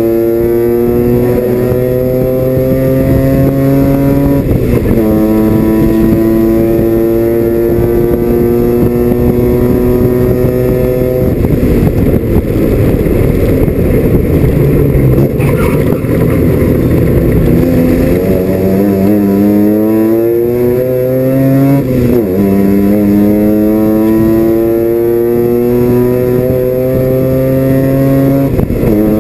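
Mazda RX-7 FC's 13B rotary engine at full throttle, heard from inside the stripped race car's cabin. Its note climbs steadily through the gears, drops sharply at an upshift about five seconds in, then climbs again. Past the middle the revs fall away and the note turns rough for several seconds, then it pulls up through the gears again with another upshift late on and one more right at the end.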